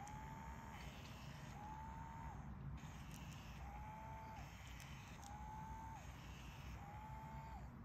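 Small electric motor of an automatic cat toy whining in short bursts, five times, each under a second, as its feather wand swings round in starts and stops. A few faint clicks come between the bursts.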